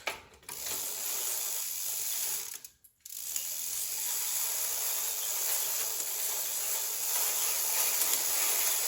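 Schwinn Continental's drivetrain spinning as the cranks are turned: the chain running over the sprockets and through the rear derailleur, a steady mechanical whir that stops briefly about three seconds in and then runs on. The derailleur is being tested after a cable adjustment.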